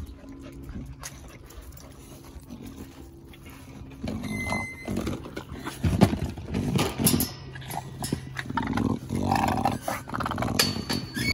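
Pocket bully dogs growling and vocalising at the kennel, louder and more frequent from about four seconds in, with a sharp knock about six seconds in.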